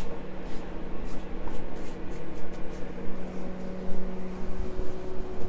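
Steady hum of a microwave-convection oven running as it preheats to 400 degrees, with light scraping and rustling as dough is wiped off hands into a bowl.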